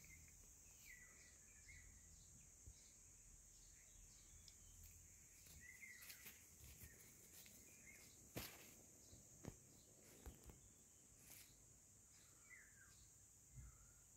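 Near silence: faint outdoor ambience of a steady high hiss, with a few faint bird chirps and occasional soft rustles in dry grass.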